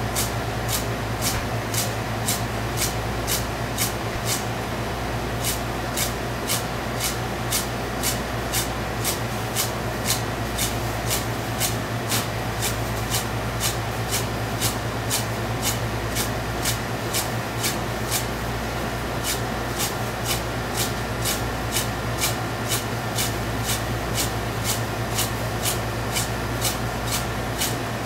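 Honekiri knife slicing a pike conger (hamo) fillet in fine, even strokes, cutting through its many small bones: a crisp cut about twice a second, each stroke reaching the board. A steady low hum runs underneath.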